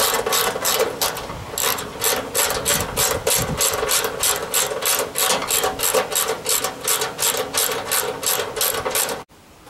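Hand ratchet with a T50 Torx bit clicking rapidly, about four clicks a second, as the screws holding a hinge to a steel tube door are run in and tightened. The clicking stops suddenly near the end.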